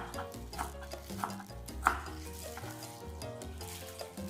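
A spoon stirring salad ingredients in a bowl, knocking against the bowl's side four times about two-thirds of a second apart, over background music.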